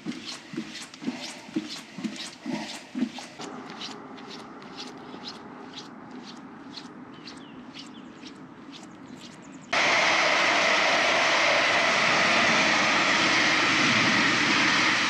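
Footsteps on a paved path, about two a second, go on more faintly over a steady hiss. About ten seconds in, an electric passenger train passing close by sets in suddenly as a loud, steady rushing rumble.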